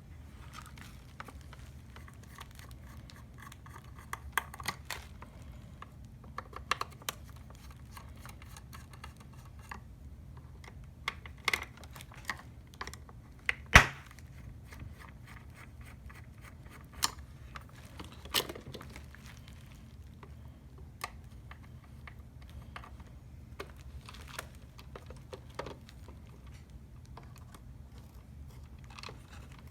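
Scattered clicks and taps of a screwdriver and small plastic and metal parts as the screws holding the mirror motor inside a Hyundai Azera side mirror housing are taken out, with one sharper knock about halfway through. A low steady hum lies underneath.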